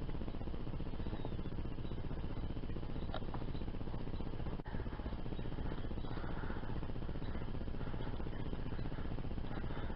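Steady low rumbling noise with a few faint clicks, dipping briefly about halfway through.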